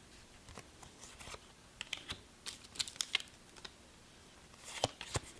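Trading cards being handled: light, irregular clicks and short scratchy rustles as cards are slid and flicked off the stack.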